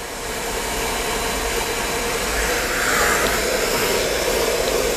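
Hair dryer with a diffuser attachment blowing steadily, growing louder over the first three seconds and then holding.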